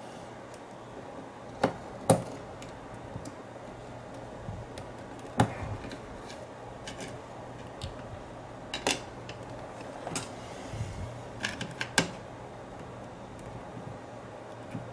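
Scattered small metallic clicks and taps of tools prying at the tiny retaining clip of an American 5200 padlock, with a few sharper ticks, over a faint steady hum.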